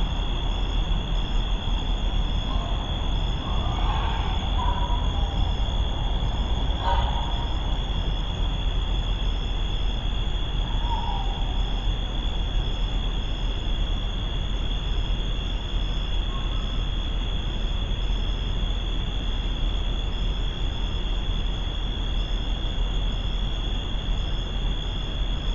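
Night-time outdoor ambience: insects, crickets or katydids, trilling steadily with a faint pulsing chirp above it, over a low steady rumble and hiss. A couple of faint muffled sounds come about four and seven seconds in.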